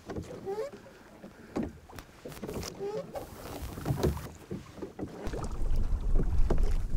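Wooden oars of a small rowboat dipping and splashing through the water, with occasional knocks of the oars. From about five seconds in, a low wind rumble on the microphone joins them.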